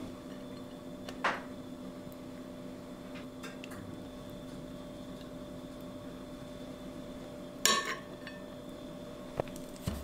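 A metal fork or spoon clinking and scraping against a ceramic plate and baking tray: a few sharp clinks, the loudest clatter about three-quarters of the way in, over a low steady hum.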